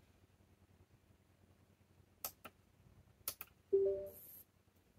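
A few faint clicks as a USB hard-drive dock is plugged in and switched on, then a short low two-tone hum a little before four seconds in as the old Western Digital drive, fitted with a donor controller board, powers up.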